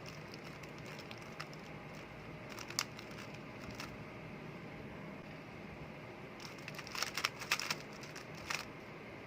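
Rubik's cube layers being turned by hand, each turn a sharp plastic click, while an OLL algorithm is performed. A few clicks come spaced apart, then a quick run of turns near the end.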